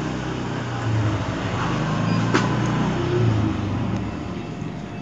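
A motor engine running with a steady low hum that wavers a little in pitch, and a single sharp click about halfway through.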